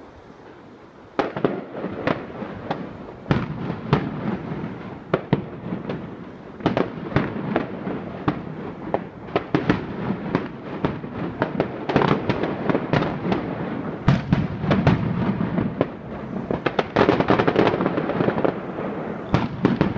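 A distant fireworks display, with aerial shells bursting in quick succession. Sharp bangs come over a continuous crackle, starting about a second in.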